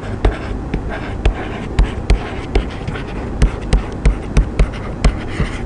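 Stylus writing on a digital tablet: irregular sharp clicks and taps, about three a second, as a word is handwritten, over a steady low hum.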